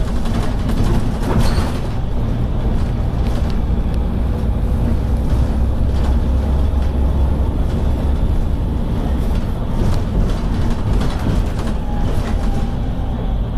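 Volvo B7TL bus engine running hard as the bus travels, heard from inside the passenger saloon as a steady heavy low drone with road rumble. The drone swells through the middle.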